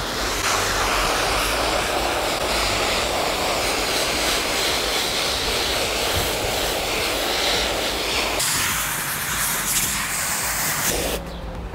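Water spraying from a garden hose spray nozzle onto a bonnet sound-deadening pad, a steady hiss of spray hitting the material. The sound thins a little about eight seconds in and stops about eleven seconds in.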